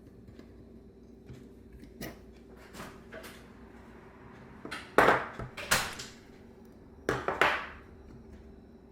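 Metal hand tools and small metal parts clinking and clattering on a workbench. A few light clicks come first, then two louder bursts of metallic clatter about five and seven seconds in.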